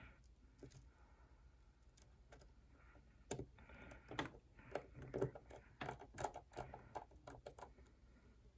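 Light clicks and taps of small parts and tools being handled while an iPhone is reassembled, faint at first and then a quick irregular run of clicks over the second half.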